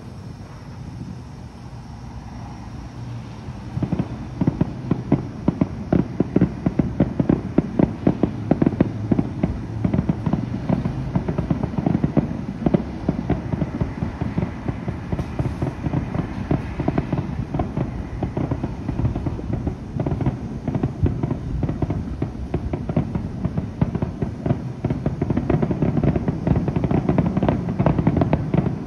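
Many fireworks going off at once: a dense, continuous crackle of overlapping pops and bangs that thickens sharply about four seconds in.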